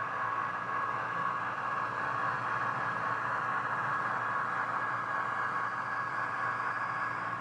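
HO scale model diesel locomotives running past on the track: a steady whirring hiss with no breaks.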